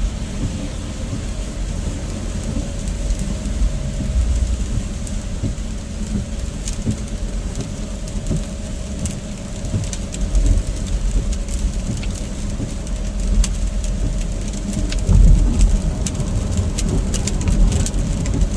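Car cabin road and engine noise, a steady low rumble, with raindrops ticking on the car's roof and windshield, the ticks coming more often in the second half.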